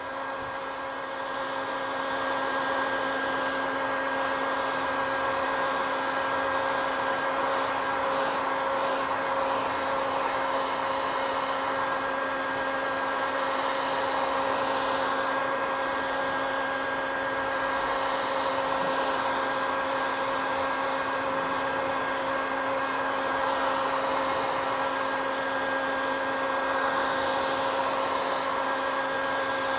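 Handheld electric heat gun running steadily, its fan blowing hot air with a steady hum over a rush of air, used to dry paper freshly coated with cyanotype sensitizer.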